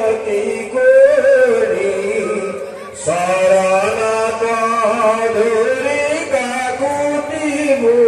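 Devotional chanting sung by voices in long held notes that slide in pitch. The chant fades briefly just before three seconds in, then starts again.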